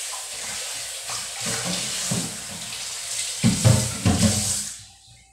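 Kitchen faucet running into a stainless-steel sink while dishes are rinsed under it. It is a steady splash, with louder knocks and splashes from handled dishware about three and a half seconds in. The water shuts off shortly before the end.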